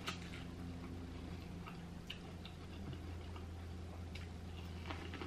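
Corn on the cob being bitten and chewed close to the microphone: scattered faint, irregular crunchy clicks from the kernels and mouth, over a steady low hum.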